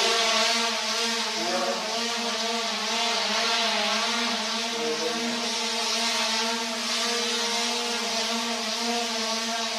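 Electric model helicopter prototype running: the brushless motor and rotor give a steady whine with a slight waver in pitch, over a rush of air from the spinning blades.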